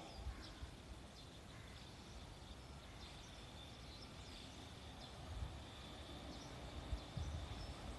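Quiet open-air ambience: a few faint bird chirps over a steady high-pitched whine, with occasional low rumbles.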